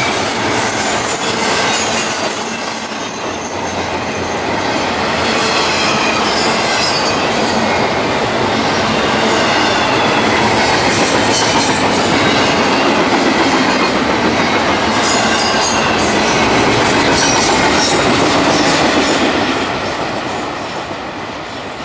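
CSX freight train's cars rolling past close by: a steady loud rumble and clatter of steel wheels on rail, with a thin high wheel squeal through the first several seconds. The sound drops off near the end as the train moves away.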